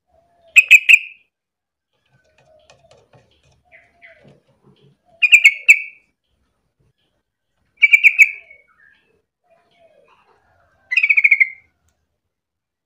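Yellow-vented bulbul singing: four short, bubbly bursts of rapid notes a few seconds apart, with faint low calls between them.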